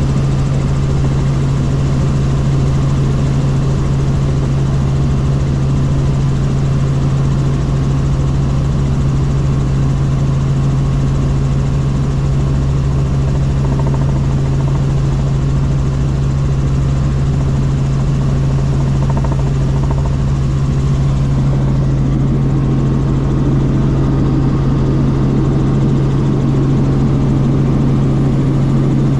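Helicopter in flight: a loud, steady drone of rotor and engine with a strong low hum that does not change.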